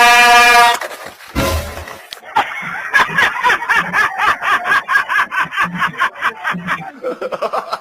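A short, loud car horn blast, then, after a brief noisy burst, a fast rhythmic pulsing sound of about four strokes a second lasting several seconds.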